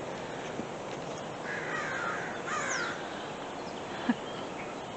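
American crows cawing: a couple of harsh caws about one and a half to three seconds in, followed by a short sharp knock about four seconds in.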